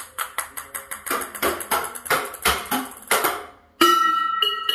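Ping-pong balls bouncing down stone stairs and off boards: a quick, uneven run of light hollow taps. A ringing tone starts near the end.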